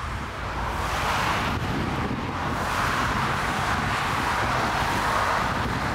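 Jet engines of an Airbus A320-family airliner on short final, a rushing noise that swells about a second in as the aircraft closes in over the runway. Gusty wind buffets the microphone with a low, fluttering rumble underneath.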